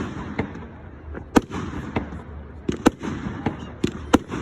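Fireworks display: about six sharp bangs of bursting shells at irregular intervals, each with a short echo, over continuous crackling.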